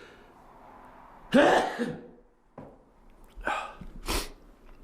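A man sneezing once, loudly, about a second in, then two shorter sharp breaths near the end. The sneezing is set off by dust from the old carpet.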